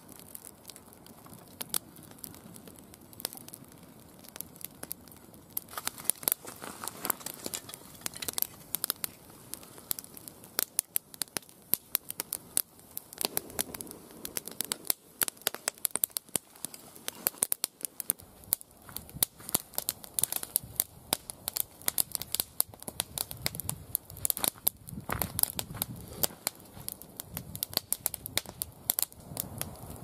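Newly lit wood fire of split kindling catching and crackling, sparse pops at first growing much busier after a few seconds, with light knocks of sticks being laid on.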